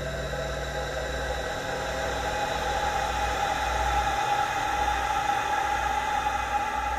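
Dark ambient drone from a horror film's end-credit score: a steady rumbling hum under sustained tones, swelling slightly in the middle.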